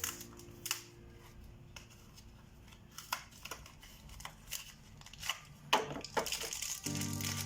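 Scattered clicks and knocks of tools and motor parts being handled during work on a chiller fan motor's bearing, the loudest knock near the end. Just before the end, steady music-like tones and a hiss come in.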